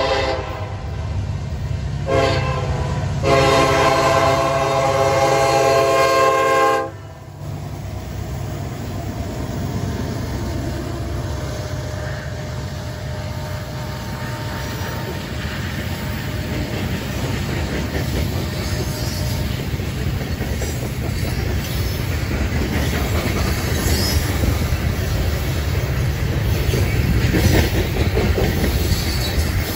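Union Pacific EMD SD70ACe locomotive's air horn blowing for a grade crossing, louder from about three seconds in and cutting off sharply about seven seconds in, over the rumble of the lead diesels. Then loaded coal hopper cars roll past, steel wheels clattering steadily on the rails.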